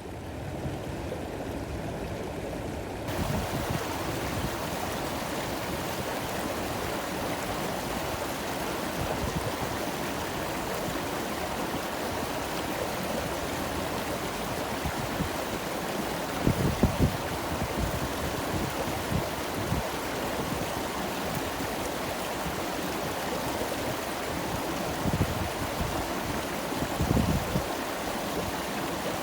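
Stream water flowing and babbling steadily. There are a few brief low rumbles about halfway through and again near the end.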